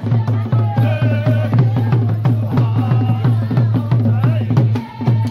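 Drums playing the Acholi bwola dance rhythm, a fast, steady beat with deep thuds, and voices singing or calling over it about a second in and again around three seconds.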